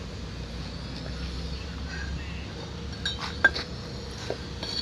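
Low hum from a pipe threading machine that dies away about three and a half seconds in, with several sharp metallic clinks of steel pipe and tools near the end.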